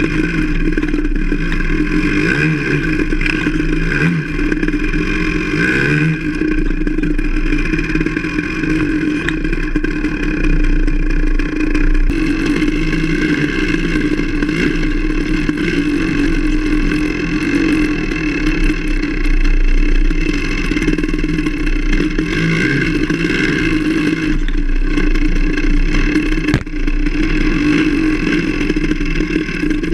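Enduro motorcycle engine running under way on a woodland trail, its note rising and falling as the throttle is opened and eased.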